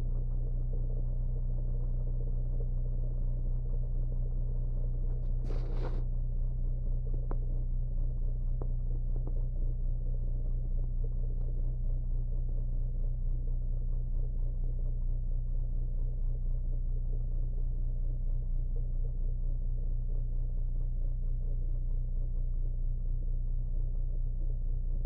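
Renault Clio 2 1.5 dCi four-cylinder common-rail diesel idling steadily at around 1,000 rpm, heard from inside the cabin. A short burst of noise comes about five and a half seconds in.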